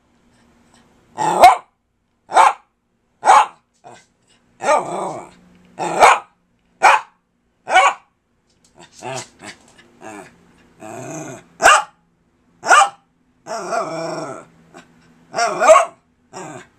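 Small dog barking persistently, a sharp bark about once a second at first, then short barks mixed with longer growling grumbles, as if talking back.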